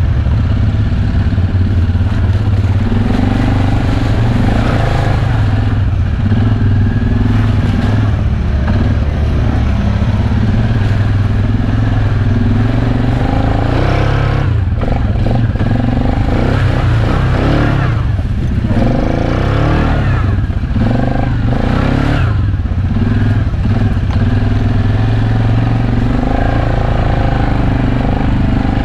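ATV engine running under load on a rough trail, its pitch rising and falling with the throttle. From about halfway through, knocks and clatter come from the machine jolting over ruts.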